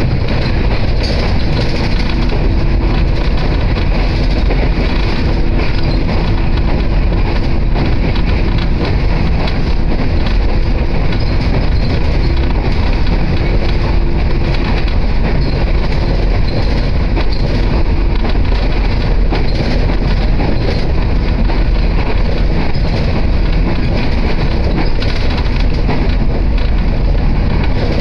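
Electric commuter train running, heard from inside the passenger car: a steady, loud rumble of the wheels on the rails.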